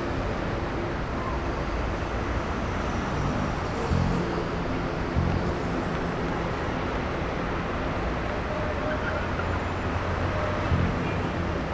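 Steady city street traffic noise: a low hum of engines and tyres.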